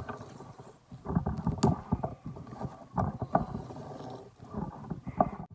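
Hands squeezing and kneading salted eggplant slices in a plastic bowl, the wet slices rubbing and pressing against each other and the bowl in irregular bursts. This presses the salty liquid out of the eggplant.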